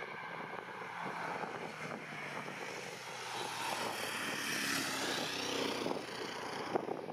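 Twin-turboprop airliner on its take-off run and lift-off: engine and propeller noise swells to its loudest a little past the middle, with a propeller whine that sweeps in pitch, then eases as the aircraft climbs away.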